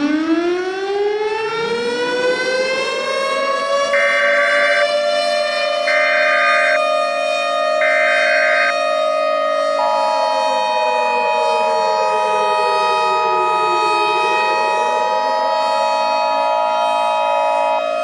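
Civil defense siren winding up into a steady wail over the first few seconds. Three short Emergency Alert System data bursts then sound, followed by about eight seconds of the steady two-tone EAS attention signal. Meanwhile the siren dips in pitch and winds back up.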